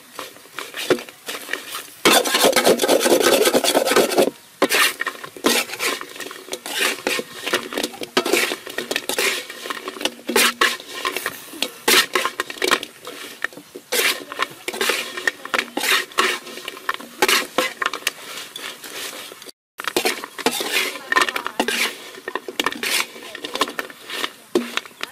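Metal spatula scraping and clattering against a metal wok in repeated strokes as fried taro sticks are tossed. The scraping is louder and continuous for a couple of seconds near the start.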